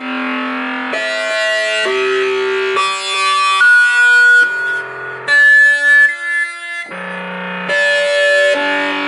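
A synth preset from Steinberg's HALion 3 Hypnotic Dance library, played live on a keyboard as a run of sustained chords, a new chord about every second, each starting and stopping cleanly.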